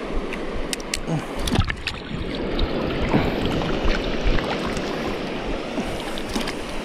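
Steady rushing of water at the shoreline, with a few small sharp clicks from handling near the microphone.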